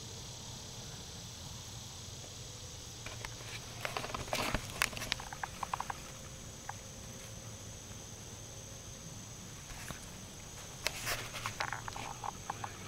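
Insects droning steadily in a high, even tone, broken twice by short spells of crackling and clicking: once about four seconds in and again near the end.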